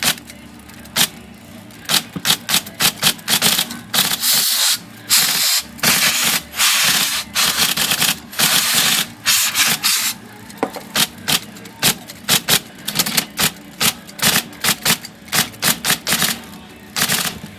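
IBM Selectric III typewriter keys being run in quick bursts, each a sharp clack, over the steady hum of the running machine. About four seconds in, three spells of aerosol hiss come and go: lacquer thinner being sprayed into the keyboard's interposer area to flush out the old oil that is making the keys stick.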